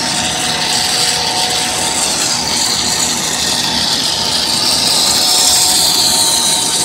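Corn puff twist snack extruder running under load while extruding, a steady mechanical drone with several constant hums and a high whine that dips slightly in pitch midway and comes back up.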